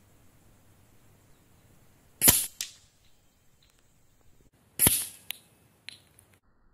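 Two shots from a Boito Urutu 931 PCP air rifle, each a sharp crack, about two and a half seconds apart. Each is followed a moment later by a fainter knock, and a small click comes near the end.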